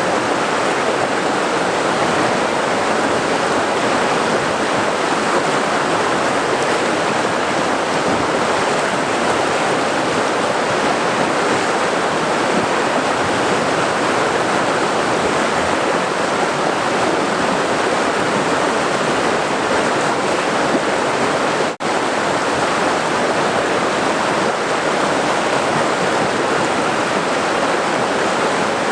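River water rushing and churning in a steady, dense roar. It cuts out for an instant about 22 seconds in.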